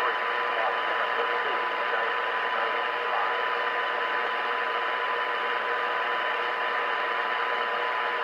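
Radio Shack DX-160 shortwave receiver playing longwave band static through its speaker: a steady hiss with a continuous high whistle and a fainter lower one, the heterodyne of a carrier, with a few faint warbling glides in the first few seconds.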